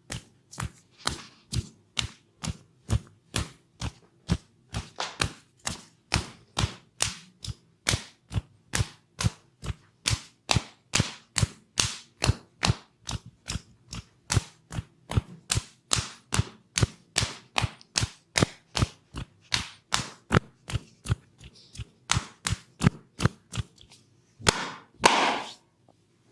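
Percussive hand massage: palms slapping bare skin in a steady, even rhythm of about two to three strokes a second. Near the end the strokes give way to one longer, noisier sound of about a second.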